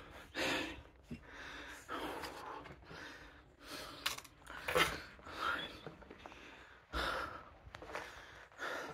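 A person breathing audibly close to the microphone, in short puffs about a second apart, with a few sharp knocks in between.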